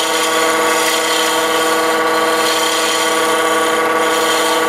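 Wood lathe running steadily, its motor hum under the hiss of a turning tool cutting a spinning wooden pen blank down to a straight cylinder.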